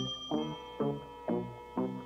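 Background cartoon music: a steady pattern of short, low pitched notes, about two a second, under a high held tone that fades out over the first second.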